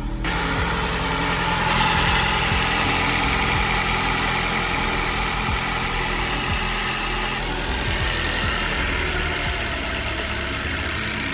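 Ford Focus car engine running at idle just after being started, on its first run after new variable valve timing (VVT) solenoids and gaskets were fitted. It comes in abruptly, runs a little louder for the first several seconds, then settles slightly.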